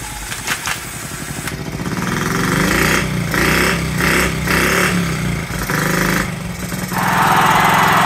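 A Honda Z50's small single-cylinder four-stroke engine is spun over by a power drill and sputters, firing in uneven bursts as it tries to catch on choke after sitting for about 35 years. The sound gets louder near the end.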